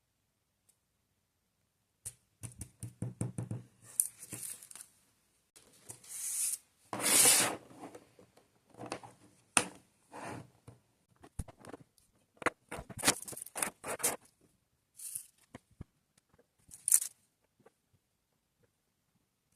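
Diamond painting materials being handled by hand: plastic crinkling and tearing with small taps and clicks, in short bursts between pauses. The longest, loudest rip comes about seven seconds in.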